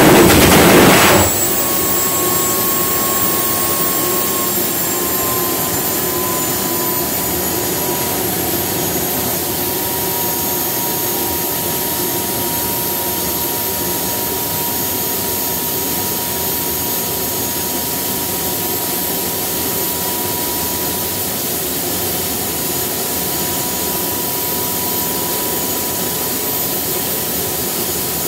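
Home-built gas turbine jet engine with afterburner running loudly with the reheat flame lit. About a second in the afterburner roar stops and the turbine runs on at idle, a steady rushing whine whose pitch sinks slightly over the next few seconds and then holds.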